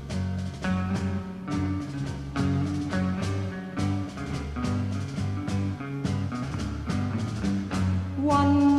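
Instrumental psychedelic rock passage: bass, electric guitar and drums playing a steady, repeating rhythm just before the vocal comes in. A strong held note enters near the end.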